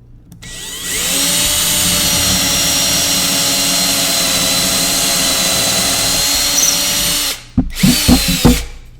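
Power drill with a 3/16-inch bit drilling a pilot hole into the wall: the motor spins up, runs steadily for about six seconds, stops, then gives several short quick bursts near the end.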